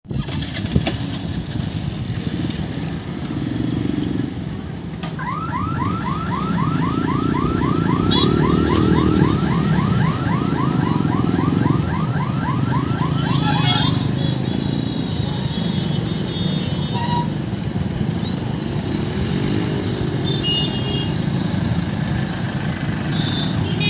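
Motorcycle and scooter engines idling and pulling away in a crowd at a level crossing. From about five seconds in, a rapid electronic warbling alarm repeats about four times a second for roughly eight seconds, and short horn toots follow later.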